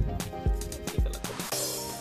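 Background music with a steady beat about twice a second; the beat drops out about a second and a half in, giving way to a held chord.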